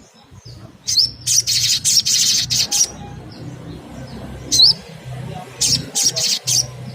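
Little spiderhunter (sogon) calling: sharp, high chirps with hooked notes, in two spells of rapid chattering separated by a pause of a couple of seconds.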